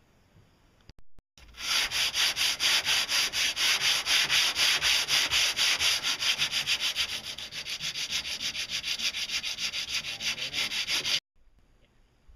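A fiberglass boat hull being sanded by hand, in quick, regular back-and-forth strokes. It starts about a second and a half in and stops abruptly near the end.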